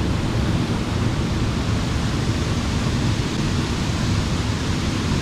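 Waterfall: a steady rush of falling water, even and unbroken, heaviest in the low end.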